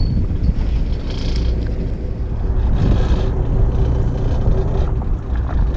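Fishing boat's engine running steadily: a low rumble with a faint steady hum.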